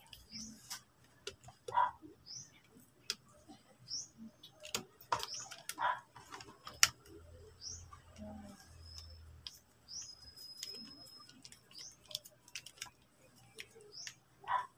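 Sharp clicks and light scraping of a screwdriver working a screw on an electric fan's metal motor housing, with a bird chirping over and over, short high notes at irregular intervals.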